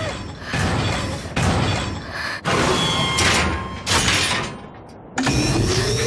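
Several sudden harsh noise effects, then about five seconds in a rising electronic whine starts and keeps climbing: the sound effect of the anime railgun charging up.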